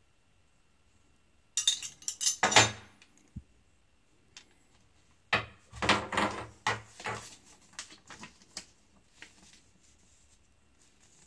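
Small metal blind-mounting brackets and plastic parts handled and set down on a wooden tabletop: a short burst of clinking and clattering about a second and a half in, a longer run of clatter and rustling from about five seconds in, then a few lighter taps.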